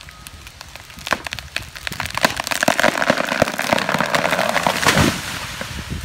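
Large felled tree coming down: a dense run of cracking, snapping wood that builds from about a second in, is loudest for a few seconds as the branches break and the tree hits the ground, then dies away after about five seconds.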